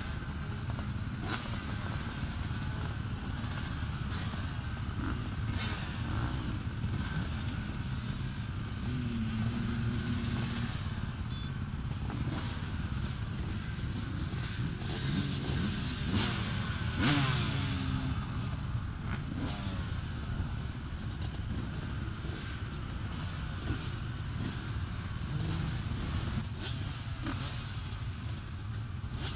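Several motocross bikes running at the starting gate, close up the rider's own Suzuki RM250 two-stroke, with occasional blips of the throttle and clicks.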